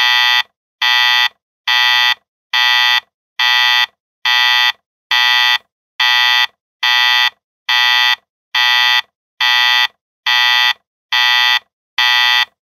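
Digital alarm clock beeping at the end of a countdown, signalling that time is up: a harsh, buzzy electronic beep of about half a second, repeated evenly a little faster than once a second.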